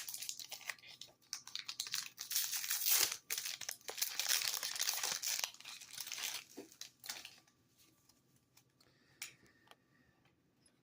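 A Yu-Gi-Oh booster pack's wrapper crinkling and tearing as it is opened, in irregular crackles for about seven seconds, then only a few faint clicks.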